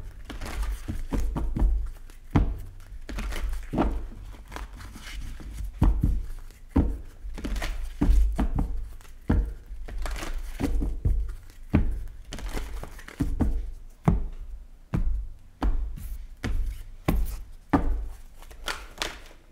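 A tarot deck being shuffled by hand, overhand, with irregular quick slaps and rustles of the cards. Dull thumps come from handling the deck.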